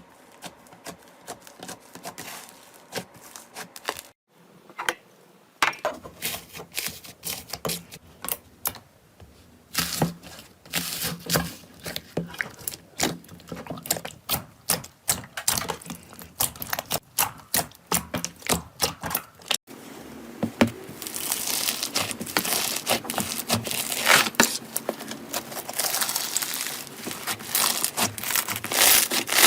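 Slime being squeezed and pressed by hand, giving a run of small sharp clicks, pops and crackles. The sound changes abruptly about four and twenty seconds in, and the crackling is denser and louder in the last part.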